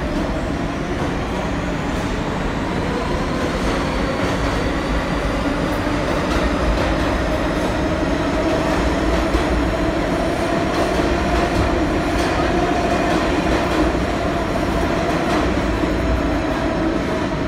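R46 subway train running past a station platform: a steady rumble of wheels on rail with a motor whine that rises slowly in pitch.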